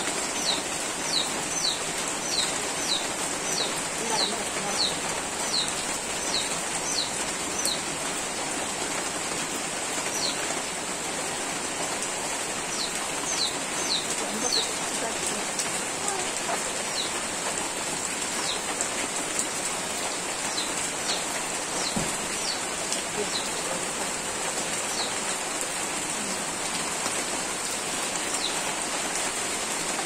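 Steady rain falling on wet ground and leaves. Over it, a bird repeats short falling chirps, about two a second for the first several seconds and scattered after that, with a thin steady high-pitched drone behind.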